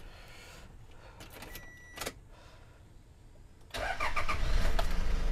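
A short beep and a click, then about three and a half seconds in the Toyota Super Grandia van's engine starts and settles into a steady idle, just after an oil change.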